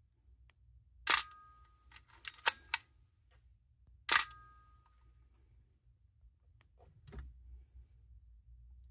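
Nikon F3 firing its shutter twice, about three seconds apart: each release is a sharp mirror-slap and shutter clack with a brief metallic ring, and the mirror now lands on freshly fitted 2 mm self-adhesive foam. Between the two releases come a quick run of smaller clicks from the film advance lever being wound, and a soft handling knock follows near the end.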